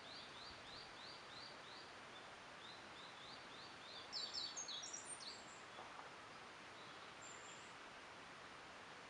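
Songbirds singing in a forest. A run of quick repeated high notes, about four a second, in two phrases over the first four seconds, is followed by a louder burst of higher chirps around four to five seconds in. A steady soft hiss lies beneath.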